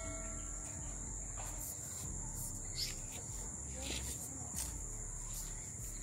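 Insects trilling in one steady, unbroken high-pitched tone, with a low rumble underneath.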